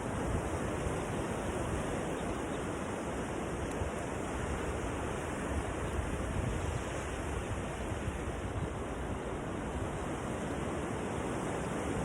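Steady rushing wash of ocean surf breaking on a beach, an even noise without distinct events.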